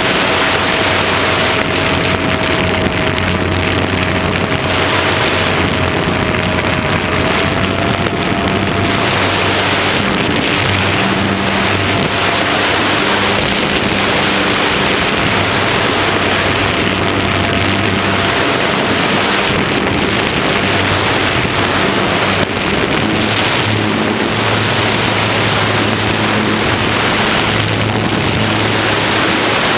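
Wind rushing over the microphone, with the steady whine of a small electric RC plane's motor and propeller running underneath at about three-quarter power.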